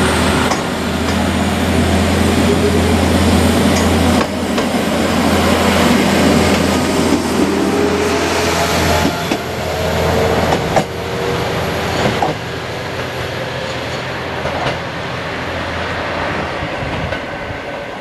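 KTR 700 series single-car diesel railcar running close by: a steady diesel engine drone that drops away about halfway through, with a few sharp metallic clanks from the wheels on the track. The sound thins out toward the end.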